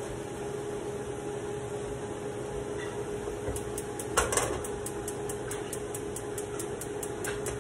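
A metal frying pan clanks down onto the gas stove's grate about four seconds in. Just before, the burner's spark igniter starts clicking fast and evenly, about four clicks a second, as the gas is lit. A steady hum runs underneath.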